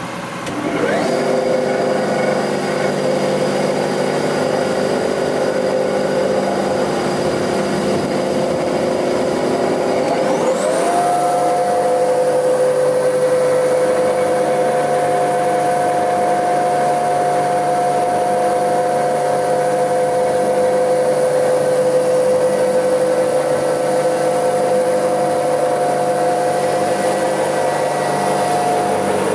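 Bäuerle spindle moulder switched on and running idle with a cutter on its spindle: the motor and spindle spin up to a steady whine, then about ten seconds in the pitch climbs again and settles into a higher steady whine.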